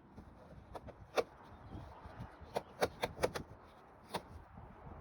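Vinyl cap being fitted onto the head of a vinyl pergola column: a series of sharp knocks and clicks, about seven in all. The loudest comes a little over a second in, with a quick cluster of several near the middle.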